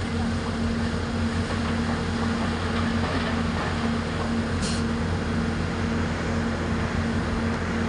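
Heavy diesel engine of quarry machinery, an excavator or mining dump truck, running steadily under a constant drone, with a brief hiss a little past halfway.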